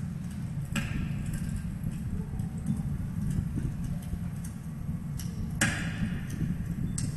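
Steady low outdoor rumble with a few sharp clicks scattered through it, the strongest about five and a half seconds in.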